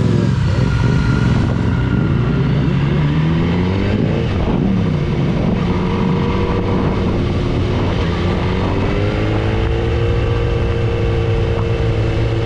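Sport motorcycle engine under way, revving up and shifting: its pitch climbs, drops at a gear change about four seconds in, then climbs again and holds steady in the second half.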